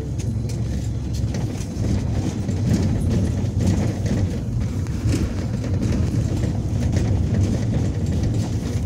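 MAZ-215 articulated city bus under way, heard from inside: a steady, deep engine and road rumble with scattered light rattles.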